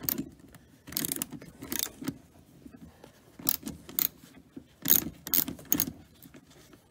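Ratcheting box-end wrench clicking in repeated short runs as it backs out a rusty seat-hinge bolt, about eight bursts of clicks with short pauses between.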